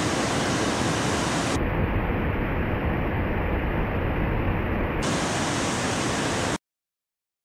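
Steady roar of breaking ocean surf, duller for a few seconds in the middle, that cuts off abruptly to silence near the end.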